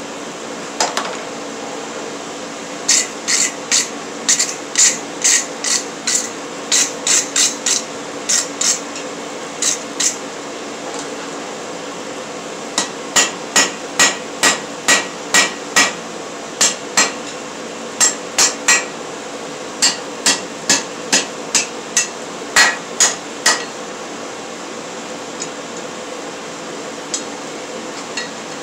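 Hand hammer striking a red-hot steel bar on an anvil: runs of ringing blows at about two to three a second, broken by short pauses and a few lighter taps near the end.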